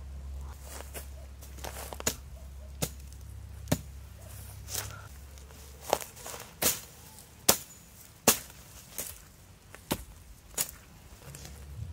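Tent stakes being hammered into the ground with a hand tool: a dozen or so sharp strikes, about one a second, starting about two seconds in.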